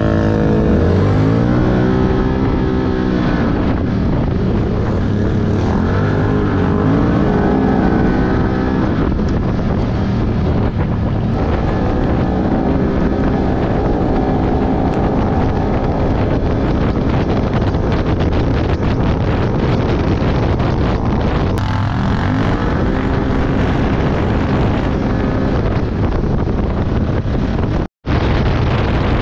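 Quad (ATV) engine running hard onboard, its pitch rising and falling again and again as the throttle opens and closes, with wind buffeting the microphone. The sound cuts out for an instant near the end.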